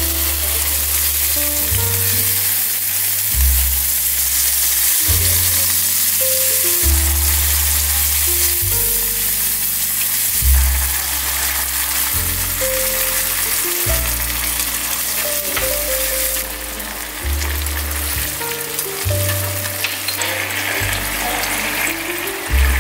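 Minced garlic and chili sizzling in hot oil in a wok, a steady crackling hiss that eases off in the last few seconds. Background music with a slow bass line plays under it.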